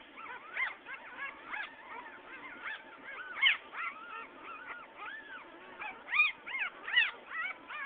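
Very young puppies squeaking and whimpering in quick, high, rising-and-falling cries, several a second, louder about three and a half seconds in and twice near the end.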